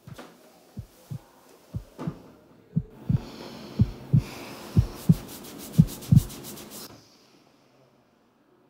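Heartbeat sound effect: low double thumps about once a second, growing louder. A rising hiss joins from about three seconds in, with a rapid high fluttering near the end, and it all cuts off suddenly around seven seconds in.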